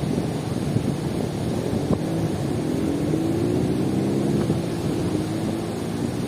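Caspian Sea waves washing on the shore, with a motor's hum coming in about two seconds in and slowly rising in pitch until near the end.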